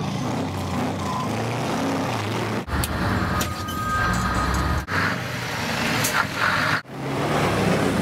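Motor vehicle engines running, heard as several short clips cut together, with the sound changing abruptly about every two seconds.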